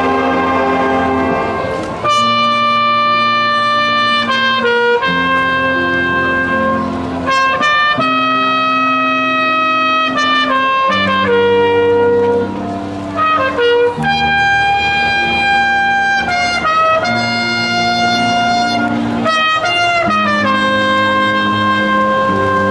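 Brass music playing slow, sustained chords that change every second or two.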